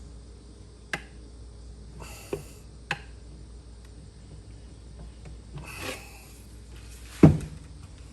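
A bent 20-inch BMX wheel being handled and bent by hand: a few sharp clicks and short rubbing sounds, then one heavy thump near the end.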